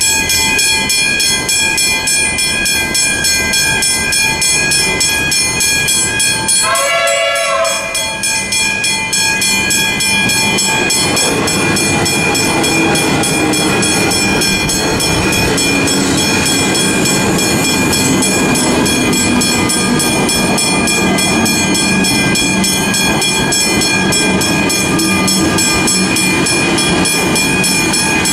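An old hybrid-type railway crossing bell ringing steadily. About seven seconds in, a train horn sounds once for about a second, and from about ten seconds on an electric suburban train runs through the crossing, its wheels and running noise under the bell.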